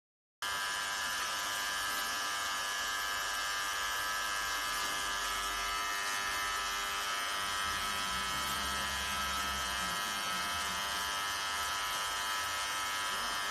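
Steady electric buzz and hum from a welding machine for concrete-ring reinforcement cages running, starting about half a second in, with a low rumble that shifts partway through.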